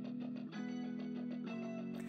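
Soft background music with a plucked guitar playing an even picked pattern, the chord changing twice.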